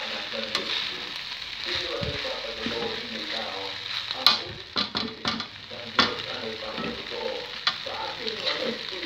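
Fried rice sizzling in a nonstick frying pan as it is stirred and turned with a plastic spatula. Around the middle, a few sharp knocks of the spatula against the pan stand out.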